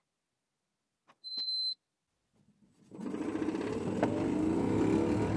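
Hotpoint Ultima S-Line tumble dryer started: a single high beep about a second in, then the drum motor starting up with a rising whine as it comes up to speed, and a few knocks from the load tumbling in the drum.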